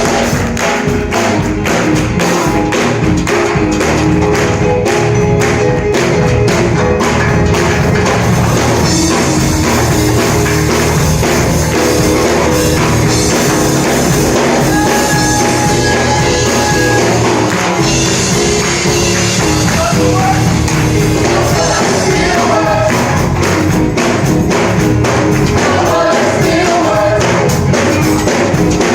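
Live gospel worship music: a church band with a tambourine and other percussion keeping a steady, busy beat over a bass line and held chords, with voices singing.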